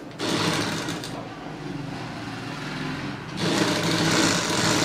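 Sewing machine stitching through cloth, running steadily and then faster and louder about three and a half seconds in.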